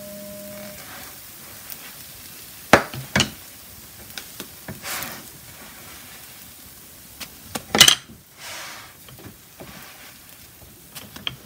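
Potato and vegetable pancakes sizzling on a hot griddle while a spatula scrapes under them and lifts them off, with sharp clacks of the spatula against the griddle and plate: two about three seconds in and a double clack just before eight seconds.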